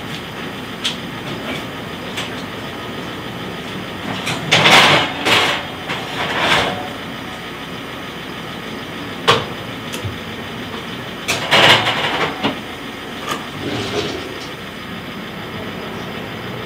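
Oven door and metal baking pan being handled as the pan is taken out of the oven: a few short scraping, clattering bursts and sharp clicks over a steady background hum.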